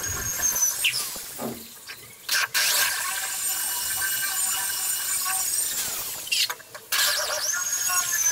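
Corded electric drill running at speed, boring a hole in the wall for a Dynabolt anchor, with a steady high whine. It cuts out briefly a little over two seconds in and again about six and a half seconds in, then starts up again.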